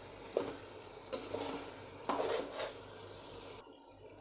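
A spoon stirring thick chicken masala in a large metal pot, sizzling faintly, with a few knocks and scrapes of the spoon against the pot. The masala has been fried until its oil has risen to the top, and the sizzle drops lower near the end.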